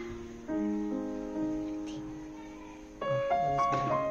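Background music on piano: a chord struck about half a second in rings and slowly fades, then a new chord enters about three seconds in.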